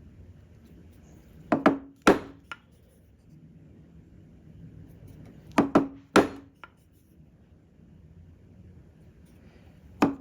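Chisel struck with a mallet, chopping straight down into a wooden furniture leg to establish the edge of a dovetail: sharp knocks in quick groups of two or three, about every four seconds.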